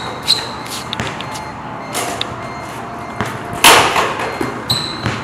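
Basketball shooting workout on an outdoor court: short high sneaker squeaks on the court surface, a few sharp ball knocks, and one loud impact about three and a half seconds in, the ball striking the hoop or the shooting machine.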